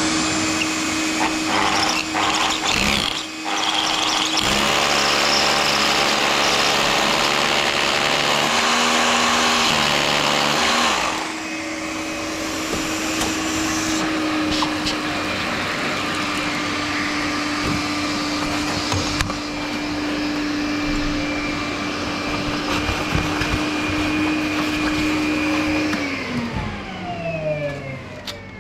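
Cordless hammer drill boring into tiled concrete through a dust-collection pad for about the first eleven seconds, over a cordless vacuum cleaner drawing the dust off. The vacuum keeps running steadily after the drill stops, then is switched off near the end and winds down, its pitch falling.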